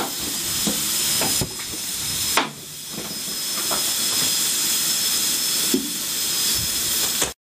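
Steady loud hiss of steam from GWR 1600 class pannier tank No. 1638, with a few light knocks from the footplate. The sound cuts off suddenly near the end.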